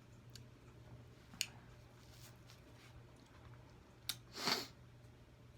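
Close-miked eating sounds of a person chewing boiled corn and potatoes in seafood-boil sauce: quiet chewing with two sharp mouth clicks, the second followed at once by a short breathy rush, over a steady low hum.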